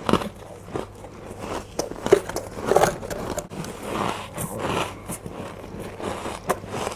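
A person biting and chewing powdery, crispy 'humidifier ice', with a run of uneven crunches and squeaks as it breaks between the teeth.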